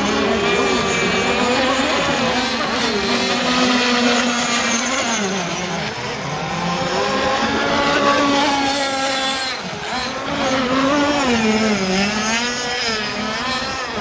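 Several 26-35cc petrol two-stroke engines of radio-controlled racing boats running flat out together, a high buzzing whine with overlapping notes that keep rising and falling in pitch.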